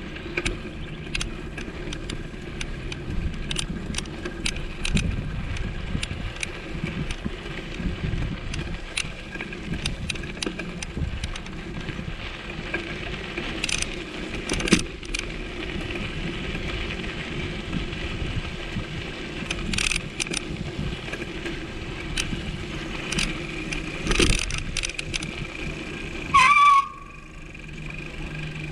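A vehicle on the move: steady running and road noise with frequent rattles and knocks. Near the end comes a brief loud squealing tone, after which the noise drops.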